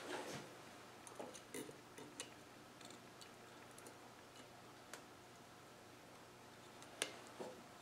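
Faint, scattered metal clicks as a snap ring held in circlip pliers is worked into a steering box housing, with one sharper click near the end.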